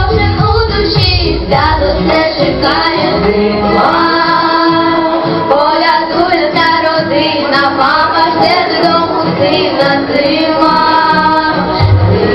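A song sung by a group of women's and children's voices together over backing music, held and gliding sung notes without a break.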